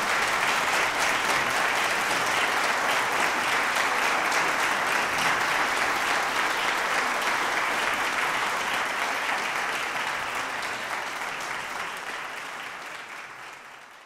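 Audience applauding: dense, steady clapping that fades away over the last few seconds.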